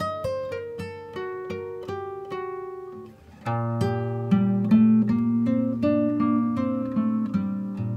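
Background music played on acoustic guitar: a run of plucked single notes, which fades briefly about three seconds in and then comes back fuller, with deeper bass notes ringing under it.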